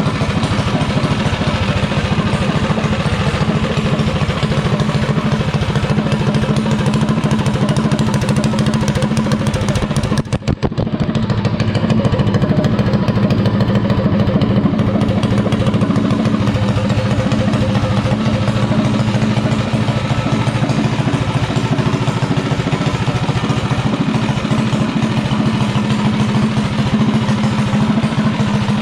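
Tillotson single-cylinder engine on a mini bike running steadily through its header pipe, with a brief drop in loudness about ten seconds in.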